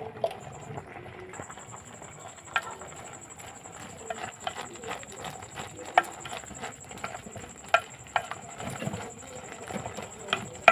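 A utensil stirring food in a cooking pot, with irregular sharp knocks of the spoon against the pot.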